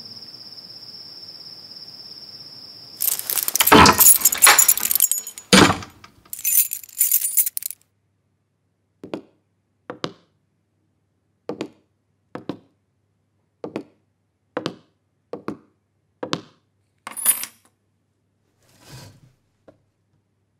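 Crickets trilling steadily, cut off by a loud rush of noise and a heavy thud about five seconds in. Then about eight slow, evenly spaced footsteps, followed by a jingle of keys and a soft thunk as the key bunch is set down.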